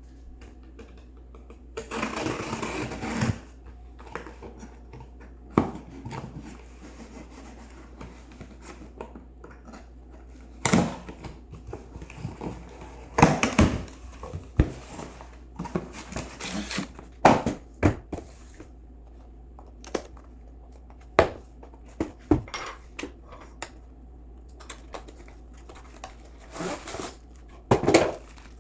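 Unboxing a phone tripod: packaging rustling and a run of sharp clicks and knocks from plastic parts being handled. A longer rustle comes early on, and irregular taps and clicks follow.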